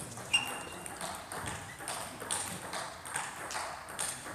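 Table tennis ball clicking a couple of times a second as it bounces and is hit. A brief high squeak comes near the start.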